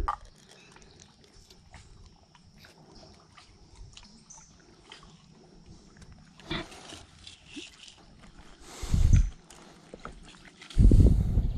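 Scattered clicks and rustling of hands working a hook out of a catfish's mouth, with a sharp crack about six and a half seconds in. Two loud low rumbles follow, one about nine seconds in and a longer one near the end.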